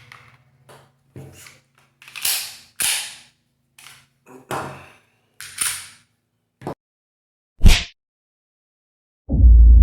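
Handling clicks and scrapes of a pistol magazine fitted with a plastic base-plate extension, about ten separate knocks and short slides, with one sharp snap near the end. A loud deep rumble starts just before the end.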